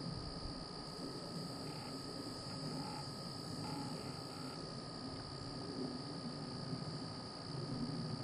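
Steady outdoor ambience: a constant high drone of crickets over a low rumble.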